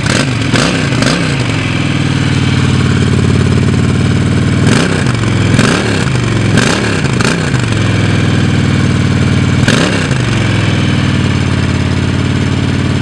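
Honda Shadow Phantom 750's V-twin running through its stock exhaust at a raised cold-engine idle, not yet warmed up. The throttle is blipped several times: twice right at the start, four times around the middle and once more later on, each a quick rise and fall in engine pitch.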